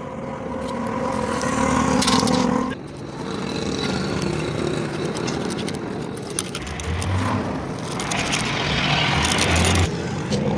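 A vehicle engine running steadily in the background, with scraping and sloshing as a tapered roller bearing is scrubbed by hand in a metal basin of liquid; the washing gets louder and hissier about eight seconds in.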